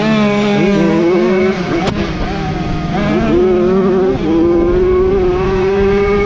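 Jawa 50 single-cylinder two-stroke engines revving hard, their pitch dropping and climbing again several times with throttle and gear changes. There is a short sharp click just under two seconds in.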